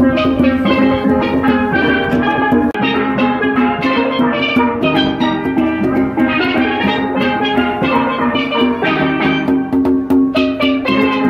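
A children's steel band playing a tune on several steel pans, quick ringing struck notes in chords, with hand drums keeping the beat underneath.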